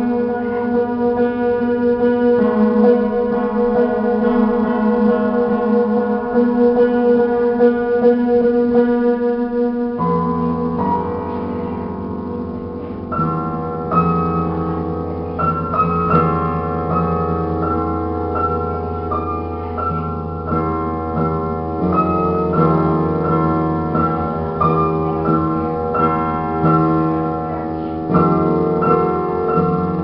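Piano music from a film score: held chords at first, then about ten seconds in the piece shifts to a deep sustained bass note under a repeating figure of notes.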